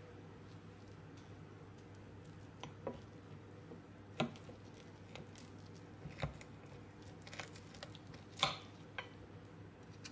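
Metal knife and fork cutting a cheese-topped baked pork portion on a ceramic plate: several sharp clicks and scrapes of cutlery against the plate, the loudest about eight and a half seconds in, over a faint steady hum.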